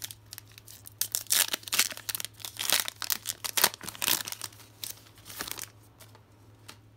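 Foil trading-card pack wrapper being torn open and crinkled by hand: a dense run of irregular crackles that dies down about six seconds in.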